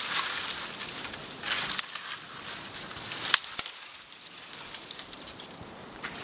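A dead standing tree being pushed over by hand: dry wood cracking and snapping, with twigs and branches crackling as it scrapes through the neighbouring trees. One sharp crack stands out a little past three seconds in.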